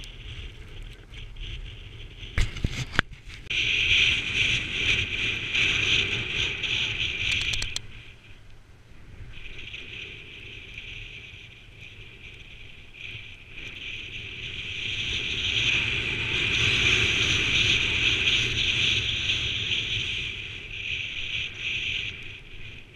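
Skis sliding and scraping over packed snow on a downhill run, a harsh hiss that swells in two long stretches, over a low wind rumble on the microphone. A few sharp knocks about two and a half seconds in.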